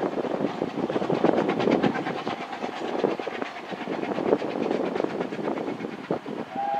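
Narrow-gauge steam train running past, with a fast rhythmic clatter from the wheels and locomotive. Right at the end a steam whistle starts to sound, a chord of several steady tones.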